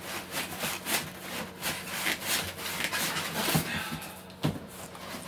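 Foam packing and cardboard scraping and rubbing against each other as a foam-packed machine is worked out of a tight cardboard box, with two sharper knocks about three and a half and four and a half seconds in.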